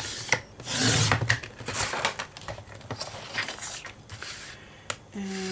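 A sliding paper trimmer cutting a sheet of white cardstock: the cutting head swishes along the rail, then the sheet is slid and handled on the cutting mat. A few sharp clicks, the clearest near the end.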